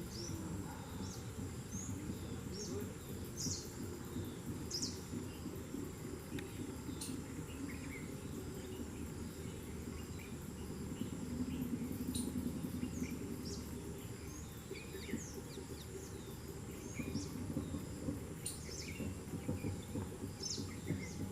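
Birds giving short, high chirps that drop sharply in pitch, scattered about once a second, over a steady low outdoor rumble.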